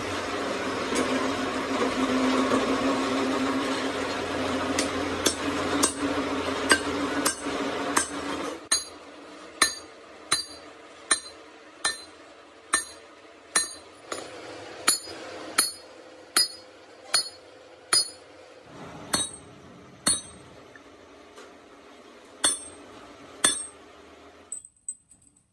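A steady machine hum with light metal ticks, then a hand hammer striking the steel parts of a truck gearbox main shaft: a long run of sharp, ringing metal blows, about one a second, with a short pause near the end.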